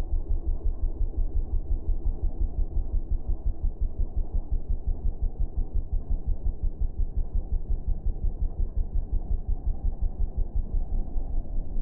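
Sport ATV engine running under way, heard as a muffled low throb that pulses about five times a second.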